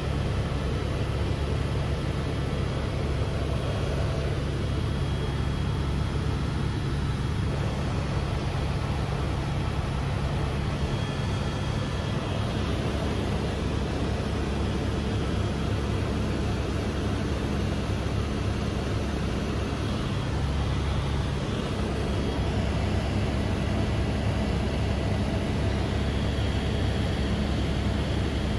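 Helicopter engine and rotor noise: a steady, unchanging drone, strongest in the low range.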